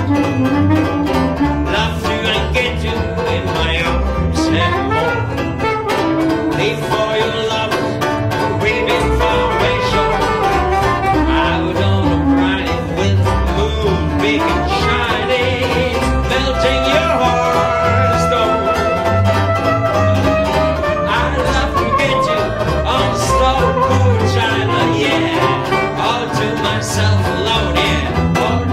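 Banjo taking a solo in a small swing-jazz band, quick picked notes and chords over plucked double bass keeping a steady beat.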